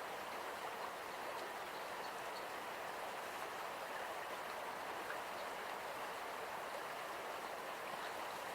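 Ahuriri River flowing: a steady, even rush of running water.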